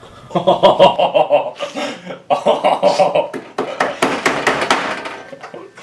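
A young man laughing in repeated rhythmic bursts of giggles.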